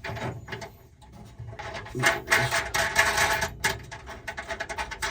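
Irregular metallic clicking and rattling of lock hardware being handled as the large nut is fitted onto the lock barrel of a tool chest drawer, busiest from about two seconds in.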